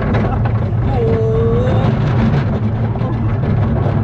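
E&F Miler Industries Hi-Miler steel roller coaster train running along its track: a loud, steady rumble of wheels on the steel rails.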